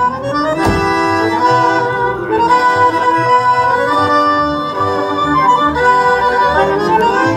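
Tango music led by bandoneon and violins playing sustained melodic lines, with a sharp accent less than a second in.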